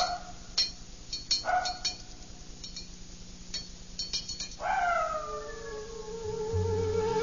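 An animal howling: a held howl ends just after the start, and a shorter one comes about a second and a half in, among scattered light clinks. About four and a half seconds in, music with long held tones comes in, opening on a falling glide.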